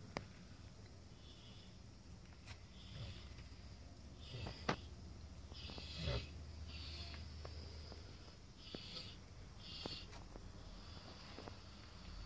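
Sleeping pot-bellied pigs snoring softly: faint, breathy snores roughly once a second, with a few small clicks and a steady high hiss underneath.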